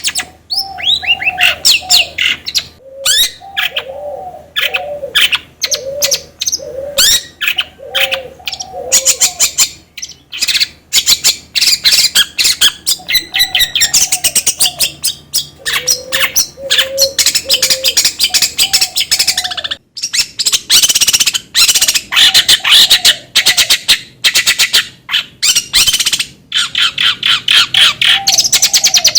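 Long-tailed shrike (cendet) singing continuously: a rapid, varied stream of sharp chirps and harsh chattering notes, with repeated lower whistled phrases woven in. There is a brief break about twenty seconds in.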